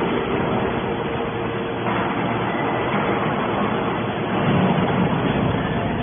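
Hydraulic scrap-metal baler running: a steady mechanical hum and whine from its hydraulic power unit, which grows louder for about a second a little past the middle.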